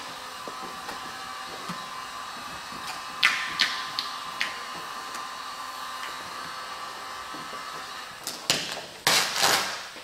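Heat gun blowing steadily while vinyl wrap film is worked over a car hood. Short rasping bursts come as the film is pulled and rubbed against the paint, a few about three to four seconds in and the loudest cluster near the end.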